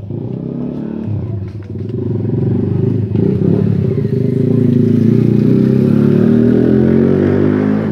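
A motorcycle engine running close by, getting louder over the first few seconds and then holding steady.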